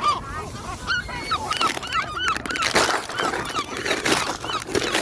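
A flock of birds calling, many short calls overlapping without a break.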